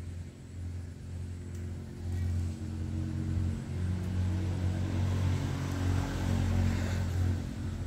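A steady low engine-like hum, with a rushing hiss that grows louder about halfway through and eases off near the end.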